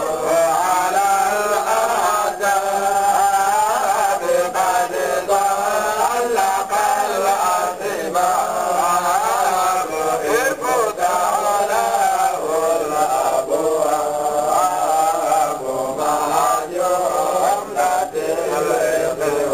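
Men's voices chanting an Islamic devotional chant (dhikr), a continuous melodic line that rises and falls without break.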